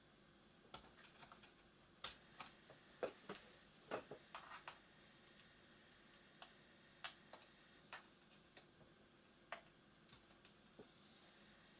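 Scattered, irregular small clicks and taps of a small metal pick working at a rubber foot on the plastic underside of an Asus ZenBook UX302 laptop, with a cluster of louder clicks two to five seconds in.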